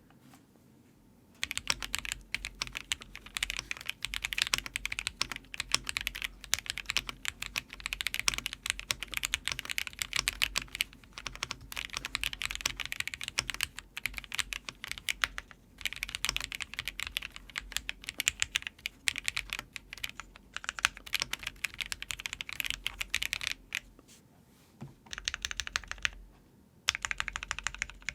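Typing test on a Keychron Q3 Pro TKL mechanical keyboard fitted with Akko Starfish linear switches and cherry-profile keycaps: quick, continuous keystrokes. The typing starts about a second and a half in, with two brief pauses near the end.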